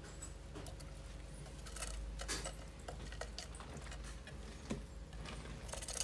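Faint scattered clicks and scratches of a budgie moving about in a wooden nest box, over a low steady hum.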